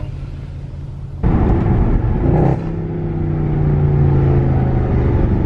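Mercedes-Benz C63 AMG's 6.2-litre V8 heard from inside the cabin: a low hum, then the engine sound jumps up sharply about a second in as the car accelerates, settling into a steady drone.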